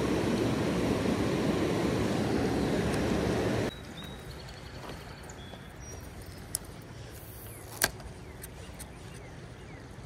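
Rushing creek water close to the microphone, with the hand and net down at the water's surface; it cuts off abruptly about four seconds in. After that, quieter steady water flow with a couple of sharp clicks, the loudest about eight seconds in.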